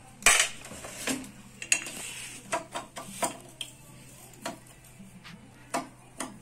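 Metal tools clinking and knocking against the steel front fork and steering head of a Honda Vario 150 scooter during a repair. About eight sharp, irregular clinks, the loudest near the start.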